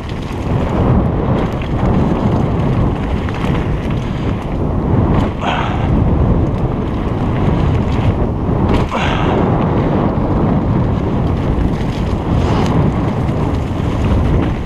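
Wind rushing over an action camera's microphone as a mountain bike rolls fast down a dirt singletrack, with steady low rumble from the tyres and frame. Two sharper knocks from bumps on the trail come about five and nine seconds in.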